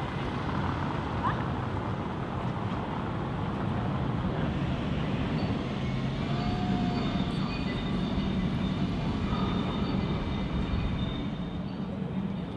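Town-square street ambience: a steady low rumble of traffic, with a few faint high tones near the middle.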